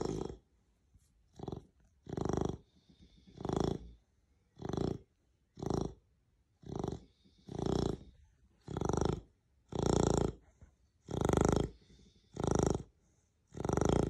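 Beagle snoring in its sleep: loud, buzzing snores about once a second in a steady rhythm.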